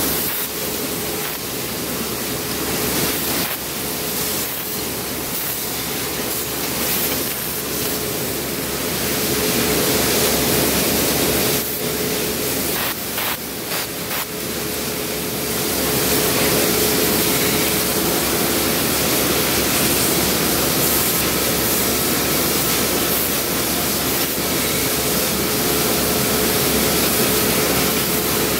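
Automatic yarn winding machines running in a spinning mill: a loud, steady rushing noise with a steady hum beneath it and a few clicks near the middle.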